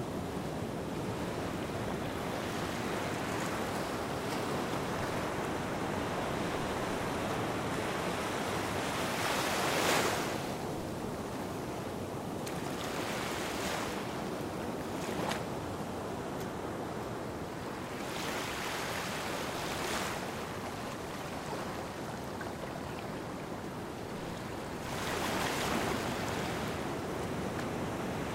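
Small waves washing onto a sandy beach: a steady hiss of water with a brighter wash every few seconds, the strongest about ten seconds in.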